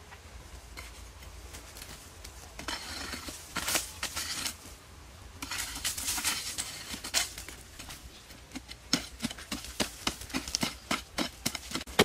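A hand digging tool chopping into and scraping dry, dusty soil, breaking up hard ground. Scraping for the first half, then a steady run of strikes about two a second that gets louder toward the end.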